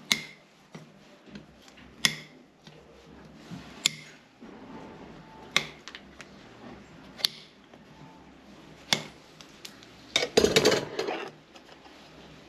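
A farrier's metal hand tool clinking against the steel horseshoe on a horse's hoof: single sharp clicks about every one and a half to two seconds, then a quick, louder flurry of clicks and scraping near the end.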